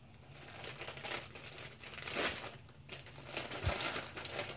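Clear plastic bags crinkling in bursts as drone accessories packed in them are handled, with a brief low bump about three-quarters of the way through.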